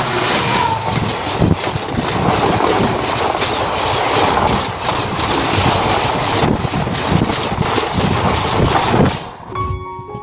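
Passenger train passing close by: a diesel locomotive and its coaches rushing past with a rapid, irregular clatter of wheels on the rails. The train noise cuts off suddenly near the end.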